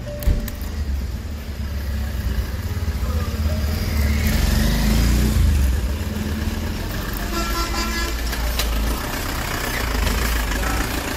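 Motorcycle on the move: steady low engine and wind rumble, swelling a little about four to five seconds in, with a vehicle horn sounding for about a second around seven seconds in.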